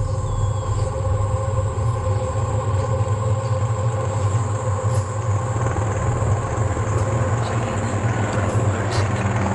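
Helicopter flying overhead: a steady low rotor chop and engine drone, with the whine and hiss above it growing a little louder toward the end.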